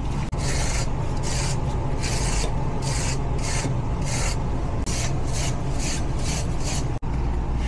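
A stiff brush scrubbing the dirty evaporator coil fins of an air handler, in regular scratchy strokes about two a second that quicken near the end. Under it is the steady low hum of the unit running in heat mode.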